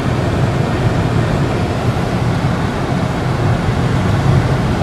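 Steady road and engine noise of a moving car heard from inside the cabin: a low rumble with a fainter hiss over it.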